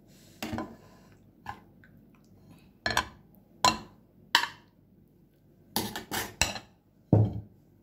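Metal serving fork clinking and scraping against a steel baking pan and a plate as portions of baked pasta are cut and served: about ten short, sharp clinks at irregular intervals, with a quick cluster of three near the end.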